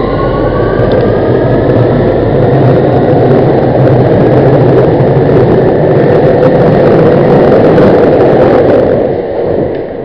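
Underground train accelerating: a motor whine rises in pitch in the first second, then a dense rumble and rattle of wheels on the track that drops away shortly before the end.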